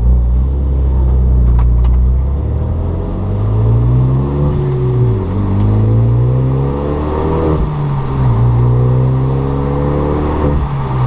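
Renault Mégane III RS's turbocharged two-litre four-cylinder engine pulling hard. Its note climbs and falls back three times, as when accelerating through the gears with upshifts.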